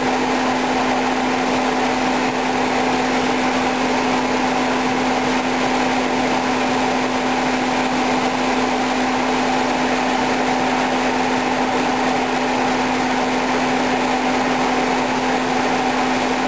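Hyundai Tucson's engine running with the air conditioning on: a steady drone with a constant hum that does not change. The owner wonders whether the noise comes from an AC system overcharged with R134a or from a dying compressor.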